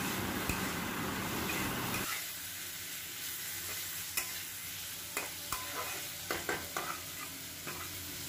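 Chopped vegetables sizzling in oil in a wok as a spatula stirs them. The sizzle gets quieter about two seconds in, and then the spatula clacks and scrapes against the pan a number of times.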